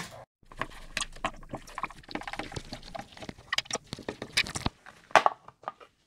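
Plastic project enclosure being handled and opened: a quiet, irregular run of small clicks, taps and scrapes as the lid comes off, with a few sharper clicks near the end.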